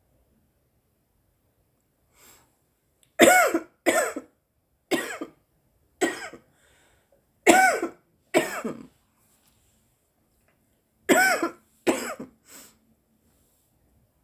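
A woman coughing from cannabis smoke: a string of about six coughs, a pause of about two seconds, then three more.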